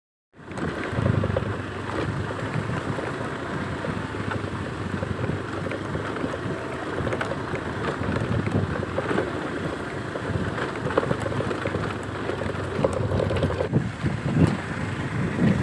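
Wind buffeting the microphone over a steady rushing noise, starting abruptly about a third of a second in.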